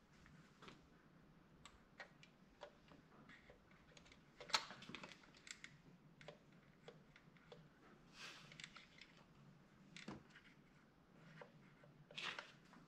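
Near silence, with a few faint scattered clicks and taps; one tap about four and a half seconds in is a little louder.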